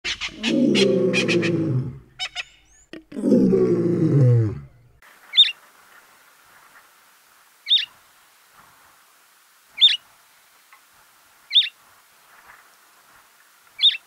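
Cape sparrow calling: single short, sharp chirps about every two seconds, five in all, starting about five seconds in. Before them, two loud, deep drawn-out calls fall in pitch, with quick high chirps over the first.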